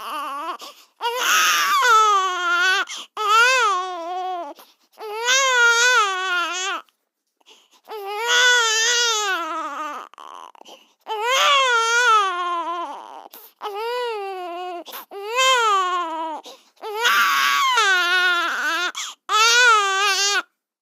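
Baby crying: a string of about nine wails, each a second or two long with a wavering pitch, broken by short catches of breath.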